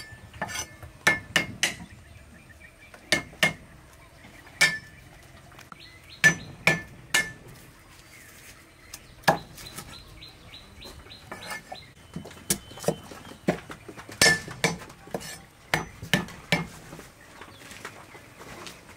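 Cleaver striking a thick wooden chopping block while cutting green onions, lemongrass and galangal: irregular sharp knocks, single or in quick runs of two or three.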